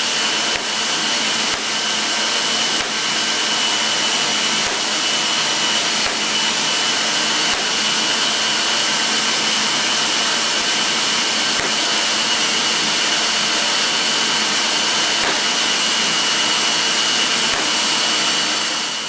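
Home-built 16-inch Van de Graaff generator running: a steady motor-and-belt rush with a high whine through it, and a few faint sharp snaps of sparks.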